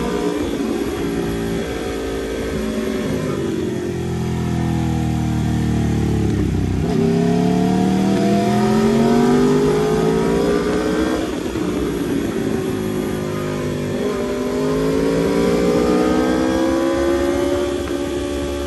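Aprilia RSV4 RR's V4 engine heard from on board while riding, its revs falling as the throttle is rolled off, then climbing twice as it accelerates out of bends, over wind rush on the microphone.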